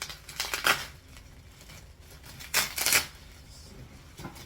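Packaging being handled by hand: two short bursts of rustling and scraping about half a second and two and a half seconds in, with a faint one near the end.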